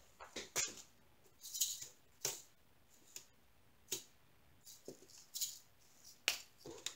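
Small plastic zip bags of resin diamond painting drills crinkling, with the drills rattling inside as the bags are picked up and handled, in short irregular rustles.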